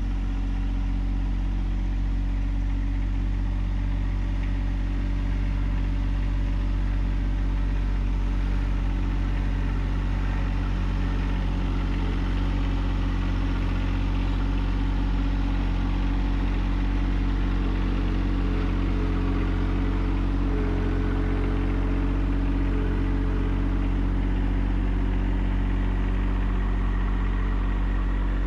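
John Deere 1025R compact tractor's three-cylinder diesel engine running steadily at an even speed.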